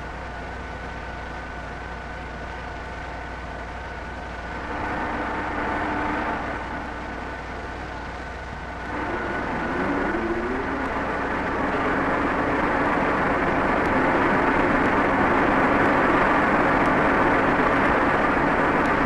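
Vertical boring mill running: a steady machine hum that steps up about five seconds in, then a rising whine about nine seconds in as the machine speeds up, followed by a louder, steady mechanical noise that builds for a few seconds and holds.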